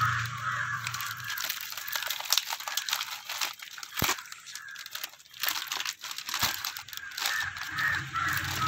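Plastic courier bag and packing tape crinkling and tearing as they are pulled open by hand, irregular crackles with a sharp knock about four seconds in.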